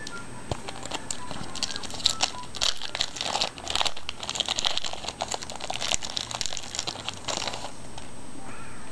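Crinkling of a trading-card pack's foil wrapper as it is handled and torn open. There is a busy run of sharp crackles from about one and a half seconds in until near the end.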